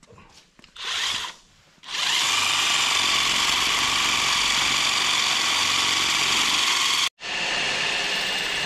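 Cordless DeWalt 20-volt drill boring into a concrete floor with a masonry bit. A short burst about a second in is followed by a steady run of about five seconds that cuts off abruptly. A similar steady noise starts again near the end.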